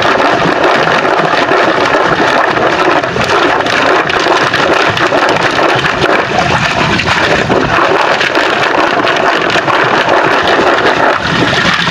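A mesh bag of freshly dug mud clams (lokan) being plunged and swirled in shallow, muddy river water to wash off the mud, with continuous splashing and sloshing.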